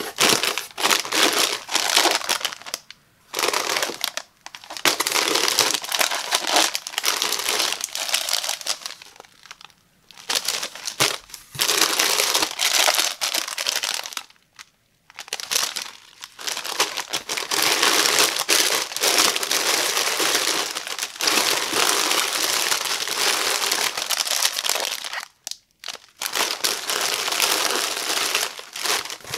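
Small single-serve Cheetos snack bags crinkling as hands rummage through and lift them from a box. The crinkling comes in long runs broken by a few short pauses.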